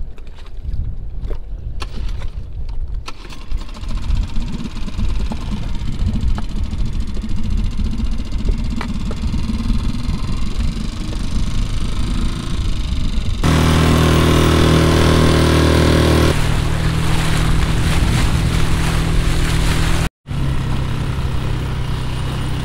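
Small Mercury tiller outboard motor on an inflatable dinghy: wind and lapping water with a few small knocks while the motor is handled, then the outboard comes in suddenly about halfway through and runs steadily. After a break near the end it runs on with the dinghy underway.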